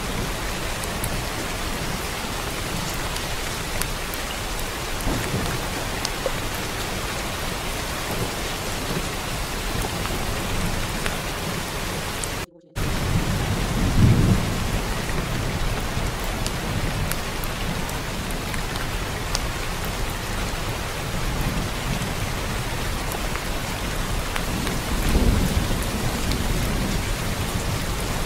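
Steady heavy rain with low rolls of thunder, one about halfway through and another near the end. The sound cuts out completely for a split second just before the first rumble.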